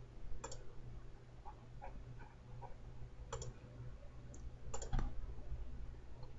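Faint, irregular clicks of a computer mouse, the loudest coming as a pair about five seconds in, over a low steady hum.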